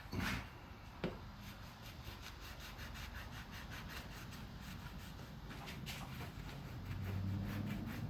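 Scrubbing the grime out of a car's bare roof-moulding channel: two knocks about a second apart, then a long run of quick back-and-forth rubbing strokes.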